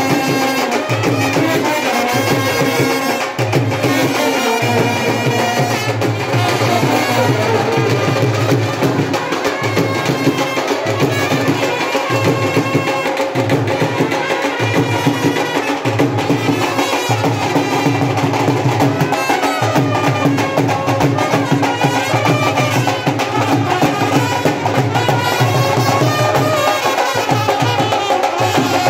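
A band playing lively traditional Punjabi music, a sustained melody over steady drumming.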